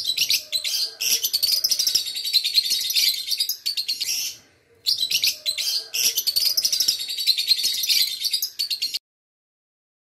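A flock of African lovebirds chattering, a dense stream of rapid, high chirps. There is a short pause about halfway, and the sound cuts off suddenly about a second before the end.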